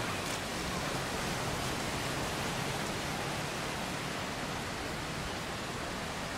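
Steady hiss of ocean surf washing on a sandy beach, even and unbroken.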